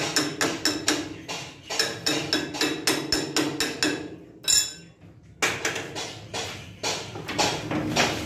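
Repeated metal-on-metal hammer taps on a workpiece clamped in a lathe's four-jaw chuck, sharp ringing knocks about three to four a second. About four seconds in they stop for a second and a half, broken by one loud strike, then resume.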